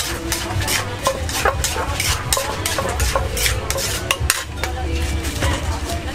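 Kitchen utensils knocking and clinking against a bowl in quick, uneven succession, about three strikes a second, over a steady low hum.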